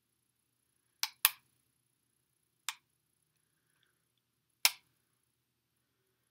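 Plastic trigger of a handheld false-lash applicator clicking as it is worked at the eye: four sharp clicks, a quick pair about a second in, another near three seconds and a last one near five seconds.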